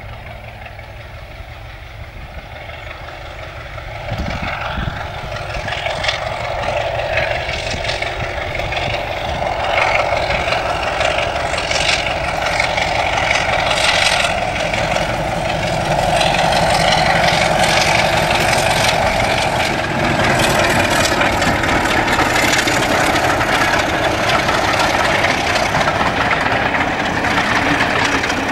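Class 33 diesel locomotive's Sulzer eight-cylinder engine working under power as it hauls a passenger train past. It grows louder from about four seconds in as the locomotive approaches, then stays loud and steady.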